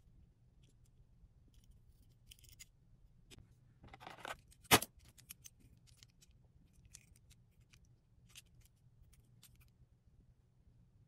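Hot Wheels blister-card packaging being handled and opened: scattered light clicks and scrapes, a longer rustling scrape about four seconds in, then one sharp snap just after it.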